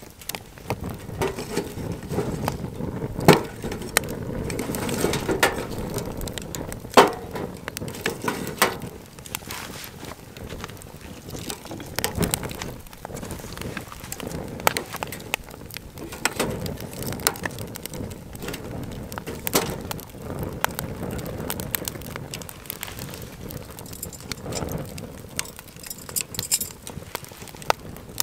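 Camp cooking gear being handled: irregular knocks and clinks, two sharper knocks about 3 and 7 seconds in, over a steady low rustling noise.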